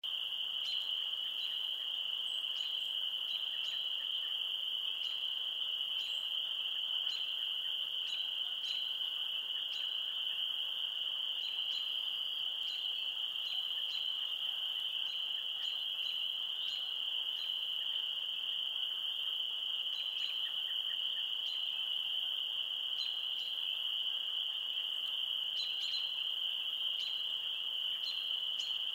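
Dense chorus of many frogs calling at once, merging into one steady, high, unbroken trill, with short single calls now and then standing out above it.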